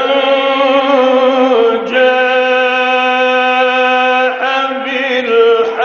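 A man's voice chanting the Qur'an in the slow, melodic Egyptian mujawwad style. He holds one long steady note for about four seconds, then moves through shorter, wavering notes.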